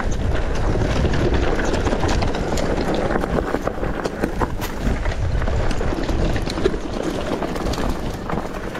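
Mountain bike riding down a rough, stony trail: tyre noise over rocks and gravel with a steady low rumble, and frequent sharp rattles and knocks from the bike over the bumps.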